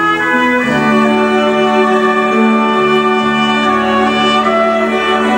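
Orchestral music with violins and other strings holding long, sustained chords. The chord changes a little over half a second in.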